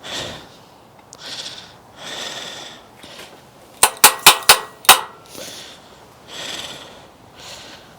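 Hammer blows on a seized bicycle crank: five sharp metal strikes in quick succession about four seconds in, the last leaving a brief ring. Heavy breaths come and go around them.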